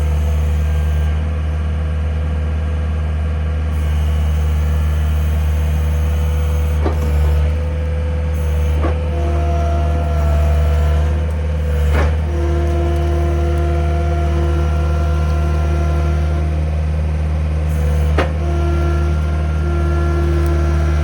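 An engine running steadily at an even low pitch, with a higher tone that comes and goes and four sharp knocks spread through it, as machinery is worked to set a timber post in its hole.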